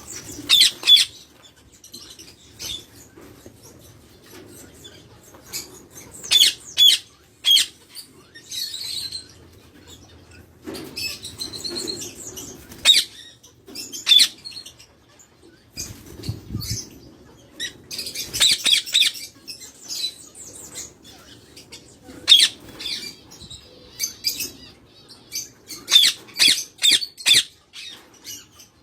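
Pet parrots giving sharp, high chirps and squawks in short runs every few seconds, with quieter stretches between.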